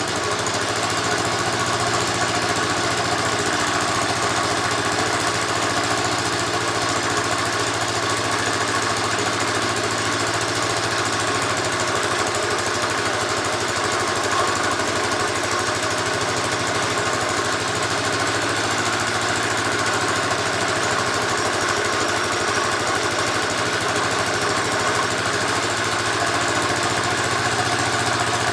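Small Lauson engine running steadily at an even speed, driving a wet whetstone grinder.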